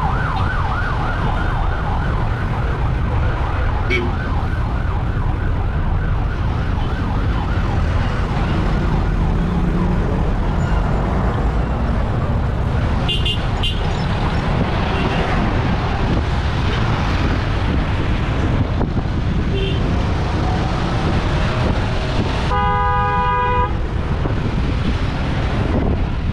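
Wind buffeting an action camera's microphone, with road traffic around, during a bicycle ride. An emergency vehicle siren yelps rapidly at the start and fades out over the first few seconds. A vehicle horn sounds once for about a second near the end.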